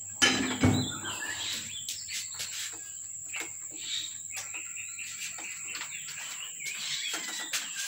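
Cats eating from clear plastic food trays on a tile floor, heard as scattered small clicks and taps, with a louder knock about half a second in. A steady high-pitched whine runs underneath, and a few faint chirps come through.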